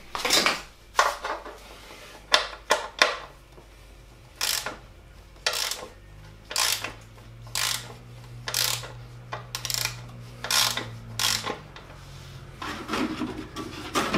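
Socket ratchet clicking in short bursts about once a second as it is worked back and forth, loosening the drain plug on an engine's oil sump.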